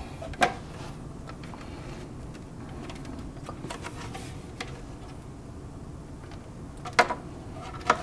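Light clicks and knocks of hands handling a hoverboard's plastic shell and rubber foot pad, a few scattered taps with the sharpest near the end, over a steady low room hum.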